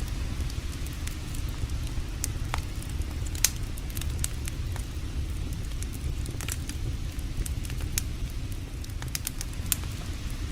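Campfire burning, with irregular sharp crackles and pops over a steady low rumble; the loudest pop comes about three and a half seconds in.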